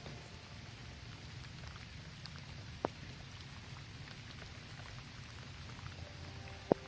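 Heavy rain falling steadily on a road, with two sharp taps of single drops landing close by, about four seconds apart.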